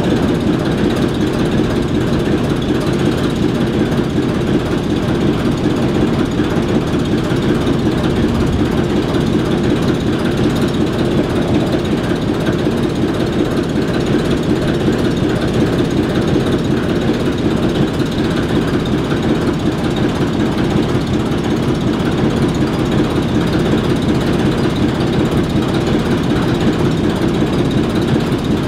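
ALCO S4 and S7 switcher locomotives' six-cylinder turbocharged diesel engines idling, a steady, unchanging low drone.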